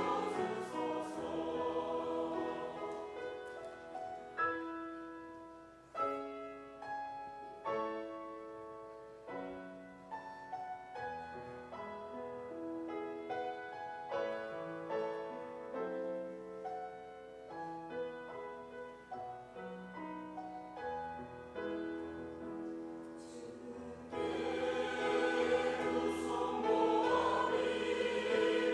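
Church choir singing a gospel choral anthem with piano. The choir drops out after about two seconds, leaving a slow piano interlude of single struck notes, and comes back in loudly near the end.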